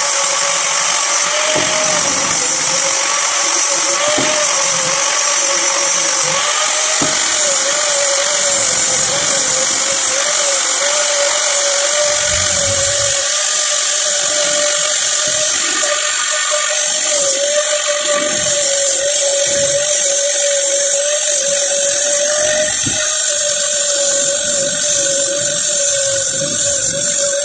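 Electric angle grinder running continuously with a steady whine that wavers slightly as it is pressed into wood, grinding and shaping the handle of a wooden cricket bat. A few faint knocks of the workpiece are heard under it.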